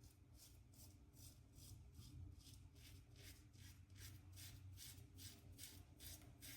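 Leaf Thorn safety razor cutting through lathered stubble in short, quick strokes, about two or three scratchy strokes a second, faint.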